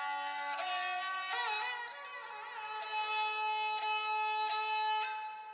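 Instrumental music led by a violin, playing held notes with a wavering, sliding phrase about a second and a half in.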